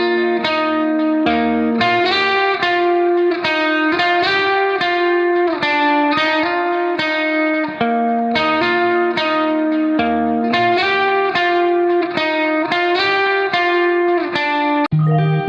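Background music: a plucked guitar melody of evenly paced notes, one every half second or so.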